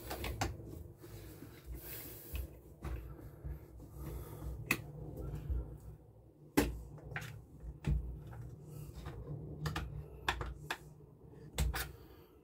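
Screwdriver clicking and tapping against the plastic air filter housing of a Homelite chainsaw as a housing screw is undone: irregular small clicks and knocks, a few of them sharper, over low handling rumble.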